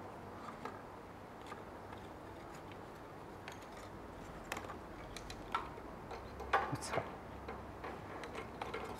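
Faint scattered clicks and rustles of a flat ribbon print-head cable being handled with cotton-gloved hands, over a low steady hiss; a few louder clicks come about two thirds of the way in.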